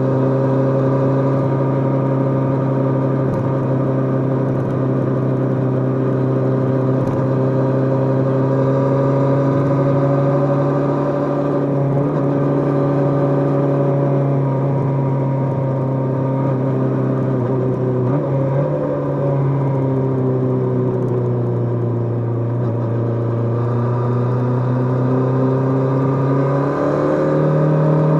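Kawasaki GPZ550's air-cooled inline-four engine running at a steady cruising speed while being ridden, its pitch drifting gently up and down. The engine note dips and recovers briefly about two-thirds of the way through, and steps up near the end.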